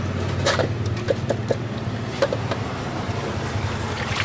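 Hands washing a scraped pig's face in a metal basin of water: a few short wet slaps and splashes over a steady low machine hum.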